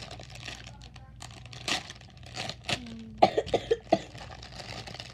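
Plastic packaging crinkling and rustling as a slime package is opened by hand, with a quick run of four or five short, loud bursts about three seconds in.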